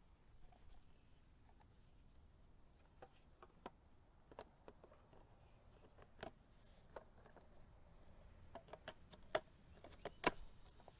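Faint, scattered clicks and light knocks of plastic stacking stakes and composite boards being handled and set into the bracket joints of a raised garden bed frame, over a steady high-pitched whine.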